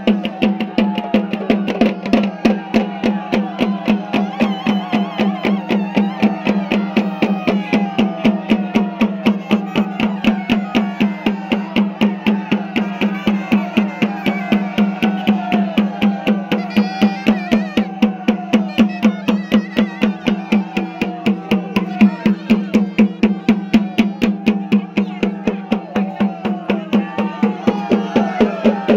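Traditional festival drumming in a fast, steady beat over a continuous low drone, with other tones bending up and down above it.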